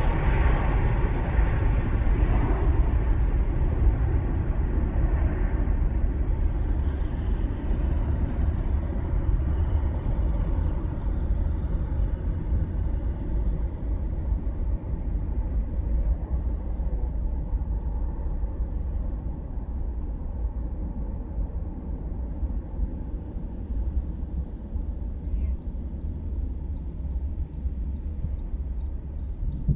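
Boeing 747-400 freighter's four jet engines at takeoff thrust as it climbs away: a loud, deep rumble that slowly fades, with a sweeping, phasing whoosh in the upper hiss about six seconds in.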